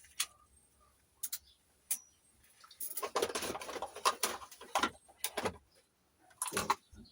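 Small objects being rummaged through and handled on a workbench: a few sharp clicks and taps, then a stretch of clattering and rustling in the middle, and a couple more knocks near the end.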